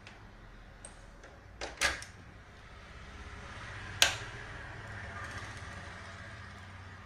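Small handling clicks, a louder double click about two seconds in, then a single sharp snap about four seconds in as a mains plug is pushed into its socket to power up the repaired AC control board. A low steady hum runs underneath.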